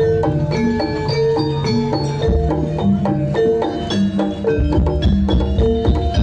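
Jaranan gamelan accompaniment: metal mallet instruments striking quick, even runs of notes over deep, sustained low tones.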